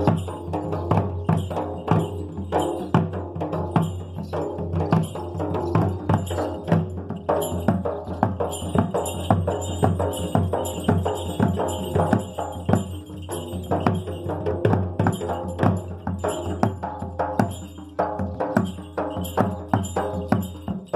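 Live folk drumming with jingling metal percussion, playing a steady, driving rhythm of strikes.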